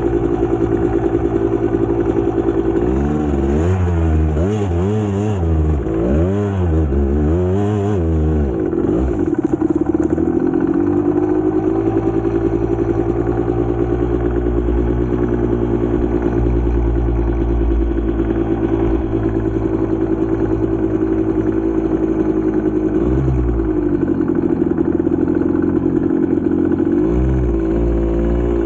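GasGas two-stroke enduro motorcycle engine under way, revving up and down several times in quick succession early on, then holding a steady pitch, with short drops in revs near the end.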